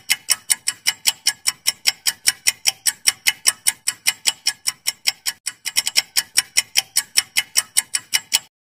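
Quiz countdown-timer sound effect: fast, even clock ticks at about five a second. The ticking stops abruptly shortly before the end.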